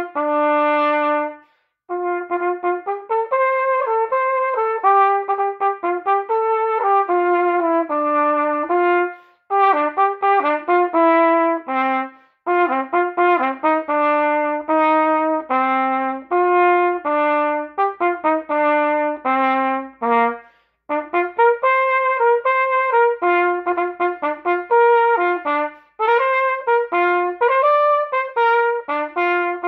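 Solo trumpet playing the lower part of a two-part duet: a run of separate, tongued notes in phrases, broken by short pauses for breath about two, nine, twelve, twenty and twenty-six seconds in.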